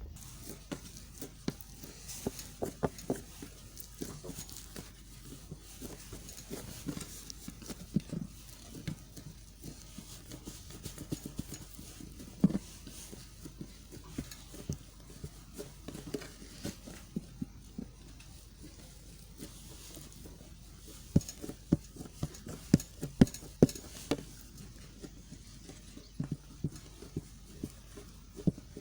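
A knife cutting into a bar of white soap: irregular crisp taps and crunches as the blade goes through and knocks down, with a run of louder cuts a little over two-thirds of the way in.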